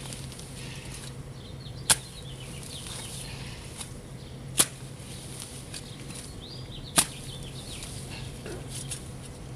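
A shovel blade driven into the soil and roots around an old azalea's root ball, three sharp hits about two and a half seconds apart, with birds chirping faintly.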